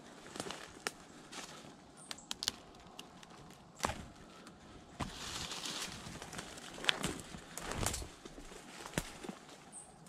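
Footsteps through dry brush and leaf litter: irregular crunching with several sharp cracks, and a longer rustle about five seconds in.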